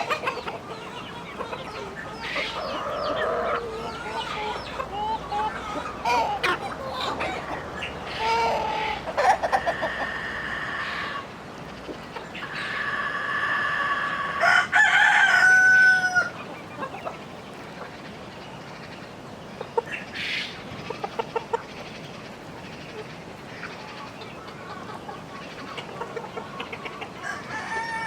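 Chickens clucking, with a rooster crowing loudly around the middle, its long crow bending down in pitch at the end.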